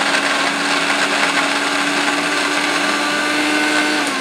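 Prestige Regal 750 W mixer grinder running steadily with its juicer jar, spinning cut carrots in the inner strainer. Near the end it is switched off and the motor begins to wind down. The inner strainer is shaking loose in the jar, which the owner puts down to its cup not being seated.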